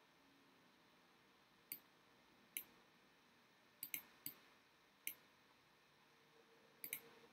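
About eight faint, sharp computer mouse button clicks at irregular intervals, some in quick pairs, made while nodes are selected and dragged in a 3D program.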